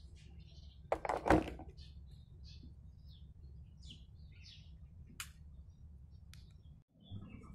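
Electric kettle set down onto its base: two clunks about a second in. Small birds chirp throughout.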